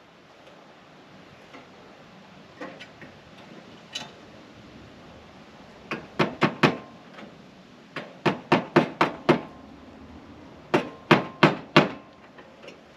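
Hammer blows on a metal downspout bracket: three quick runs of about four to six strikes each, roughly four a second, with a faint metallic ring after the blows. A few light knocks come before the first run.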